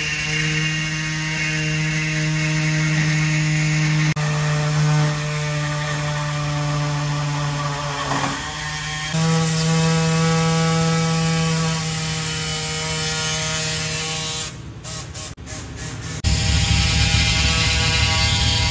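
Compressed air hissing through a tyre inflator into a large truck tyre, over a steady mechanical hum. The sound changes abruptly a few times, and a deep rumble takes over near the end.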